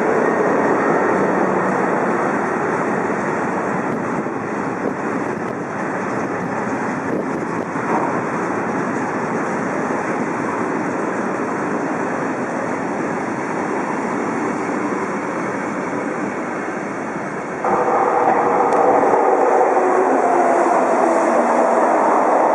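A long works train of loaded track-maintenance wagons rolling past, wheels running on the rails in a steady rumble. About 17 s in the sound cuts to SNCF BB 8500-class electric locomotive BB 8626 passing with an RRR suburban trainset, louder, with a whine that falls in pitch.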